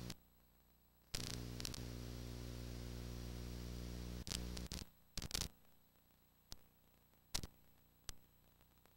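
Electrical hum and hiss from a VHS tape dub, lasting about three and a half seconds from about a second in, with sharp clicks and pops scattered through the rest; otherwise near silence.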